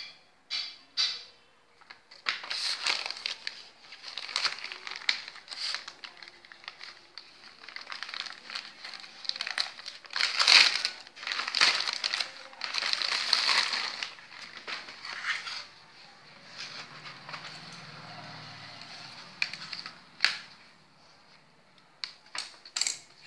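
Thin plastic wrapping crinkling and rustling as hands pull it open and take out a pair of flip-flops, loudest in the middle. It dies down a few seconds before the end, where a few sharp taps follow.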